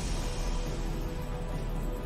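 Online slot machine's bonus-round music with steady held notes, and a rushing noise that swells just before the start and fades over about a second and a half while the win multiplier counts up.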